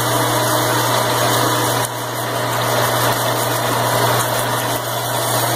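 Electric drill motor running steadily under load as a large twist bit bores the pin hole through thick steel plate.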